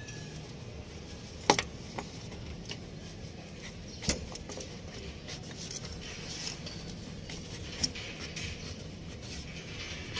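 A few sharp metallic clicks and knocks from work on the machine, the loudest about one and a half seconds in, others near four and eight seconds in, over a low steady hum.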